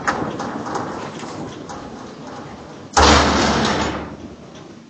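Rattling and knocking noise, with a sudden loud thud about three seconds in that dies away over the next second or two.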